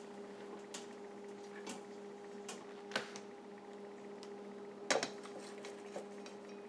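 Faint, scattered clicks and knocks of a spatula against the Instant Pot's inner pot and a plate as a cooked acorn squash half is lifted out and set down, the loudest a double knock about five seconds in. A steady low hum runs underneath.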